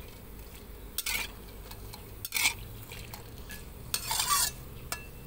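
Metal spatula scraping and clinking against an aluminium wok while stirring sun-dried sticky rice frying in oil: three strokes, the last one longer.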